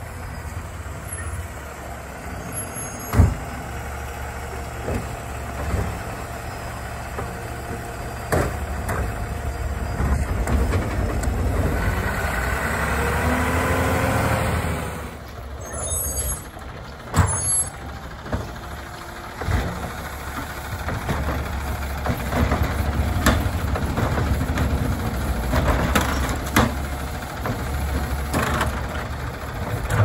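Autocar ACX Labrie Automizer side-loading garbage truck's engine running as the truck drives up and stops, with air-brake hiss and several sharp knocks. Near the end its automated arm grabs a cart and lifts it.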